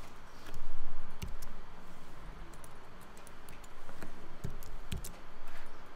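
Computer keyboard keys tapped in scattered, irregular clicks.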